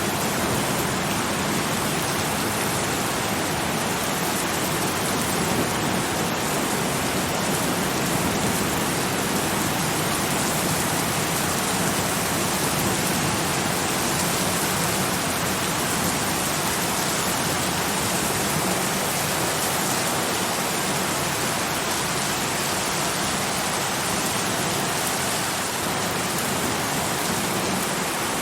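Steady rain falling, an even dense hiss with no thunder and no change in strength.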